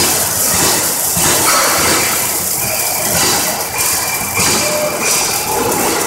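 Two Yaskawa robots arc welding at once: a steady crackling hiss from the arcs, its high part swelling and fading about every second.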